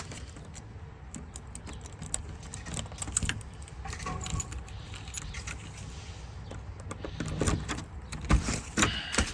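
Keys jangling and clicking, with many light ticks throughout and a few louder knocks near the end, as a door is unlocked and opened.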